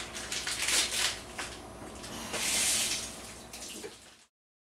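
Kitchen sink tap running, the water splashing unevenly over raw chicken tenderloins being rinsed, with several louder gushes; it cuts off abruptly about four seconds in.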